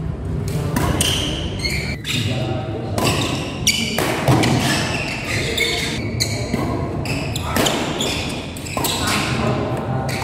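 Badminton doubles rally: a shuttlecock is struck back and forth with rackets in sharp, irregular hits, about one or two a second, in a large hall. Spectators' voices run underneath throughout.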